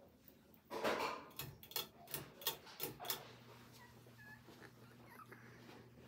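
Ceiling fan pull-chain switch clicked several times in quick succession, with a short louder sound just before the clicks. After about three seconds a steady low motor hum comes in as the fan keeps spinning at its new speed.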